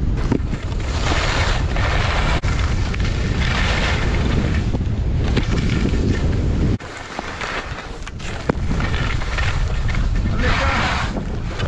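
Wind buffeting the action camera's microphone as a skier descends, with skis hissing and scraping over packed snow in bursts through the turns. The low wind rumble drops away for a second or so about seven seconds in, then returns.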